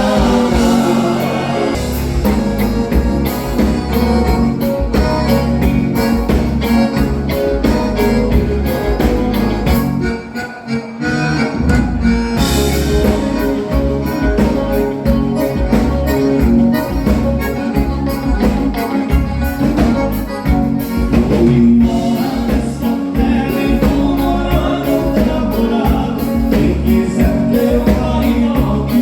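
Live gaúcho band playing a bugio dance rhythm with a steady beat and singing. The music drops out briefly about a third of the way in, then carries on.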